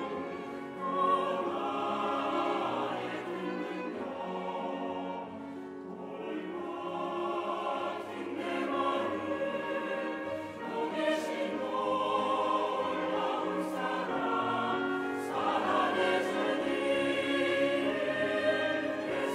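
Mixed choir of women's and men's voices singing a sacred anthem in Korean, in sustained phrases that swell and ease, accompanied by violin and clarinet.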